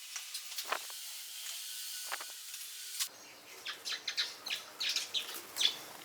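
A steady hiss that cuts off abruptly about three seconds in, then small birds chirping: many short, high chirps in quick succession.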